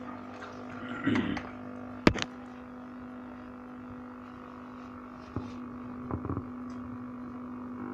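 Steady electrical mains hum, with a few clicks and knocks from handling the equipment, loudest a sharp click about two seconds in.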